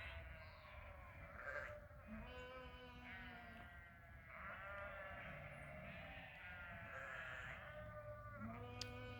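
Flock of sheep bleating, several wavering calls in a row from different animals.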